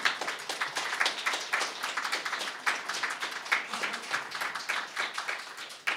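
A small audience applauding: many hands clapping, dense and even, tailing off near the end.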